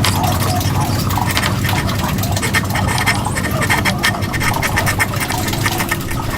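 Woodworking tool working wood: rapid, continuous scraping strokes over a steady low hum.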